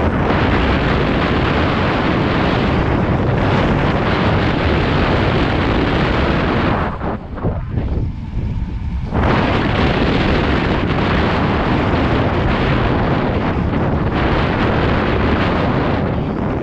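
Wind buffeting a GoPro Hero 7 Black's microphone, loud and steady, easing for about two seconds near the middle before picking up again.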